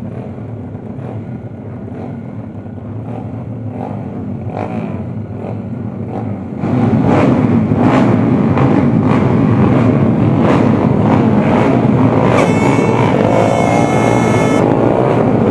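Several small race motorcycles, underbone cub-prix bikes, idling and revving on a starting grid, with short repeated throttle blips. About seven seconds in the engine noise jumps suddenly louder, and near the end engines rev up in rising sweeps.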